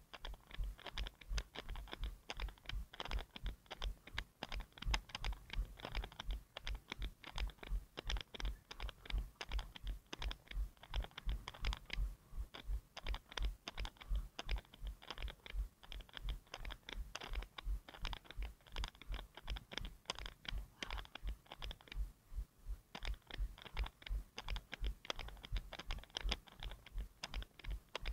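A runner's footfalls at about three steps a second, picked up as an even run of dull thumps and light clicks by an action camera strapped to the runner's head.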